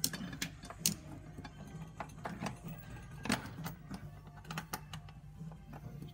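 Irregular metallic clicks and taps of transmission crossmember bolts being fitted by hand, about a dozen in all, some sharper than others.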